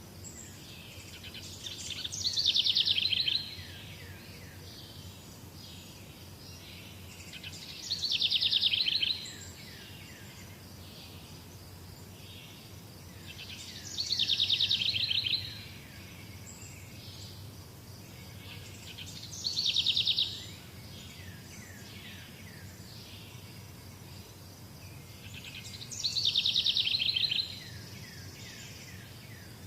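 A songbird repeats the same fast trilled song phrase five times, about every six seconds, each phrase lasting about a second and a half. Fainter bird chirps and a steady outdoor background sound between the phrases.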